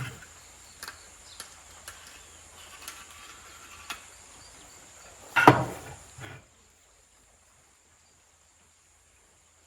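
A few light clicks and knocks over faint background, then a louder rustling thump about five and a half seconds in, after which the sound cuts out to silence.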